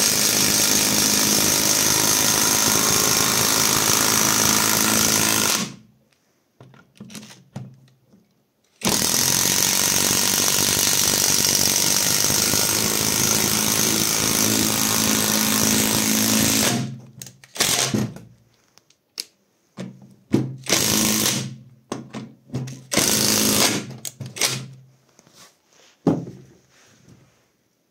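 Catpower 4226 cordless impact driver hammering a long screw into a pine block. It runs for about six seconds, pauses, runs again for about eight seconds, then gives a string of short trigger bursts as the screw is driven home.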